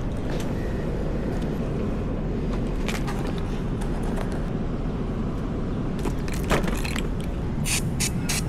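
Motorcycle engine running with a steady low rumble, with scattered sharp clicks and taps, several near the end.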